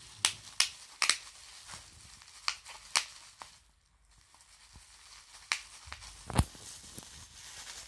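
Bubble wrap crinkling and popping as a dog bites and chews it: irregular sharp pops, about a dozen, with a brief lull about four seconds in.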